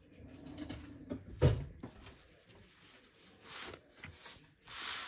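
Quiet handling sounds while a sheet of puff pastry on baking paper is scored with a thin utensil: one sharp knock about a second and a half in, then two short rustling noises near the end.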